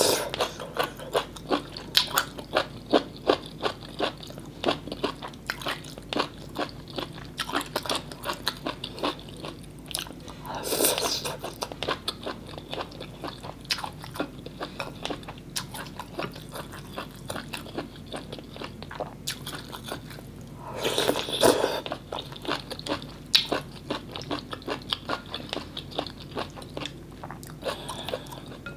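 Close-miked eating of vegetarian mì Quảng noodles and toppings: steady chewing with many short, wet mouth clicks. Twice, about eleven and twenty-one seconds in, there is a longer, louder mouth sound.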